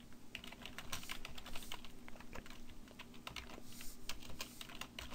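Typing on a computer keyboard: a run of quick, irregular keystrokes, fairly faint.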